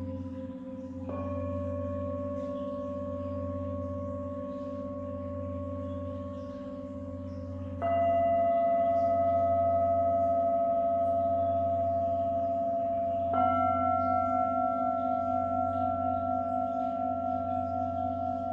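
Tibetan singing bowls struck one after another with a mallet, each strike adding a new ringing tone over the long, slowly wavering sustain of the others. There are three strikes, about a second, eight and thirteen seconds in, the middle one the loudest.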